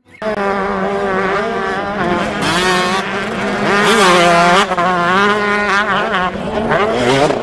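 Motocross dirt bike engines revving hard, their pitch rising and falling with the throttle, several engines overlapping.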